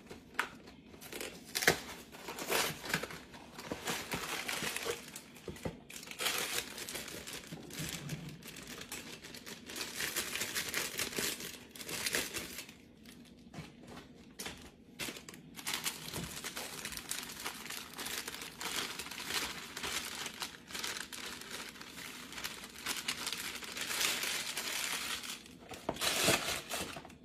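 Plastic inner bag of a boxed cake mix crinkling and crackling in irregular bursts as it is torn open and handled.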